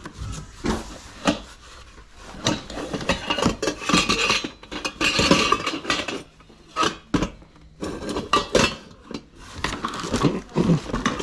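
Stainless-steel pots, pans and lids clanking and scraping against each other as they are rummaged through in a cardboard box: many irregular clinks and knocks.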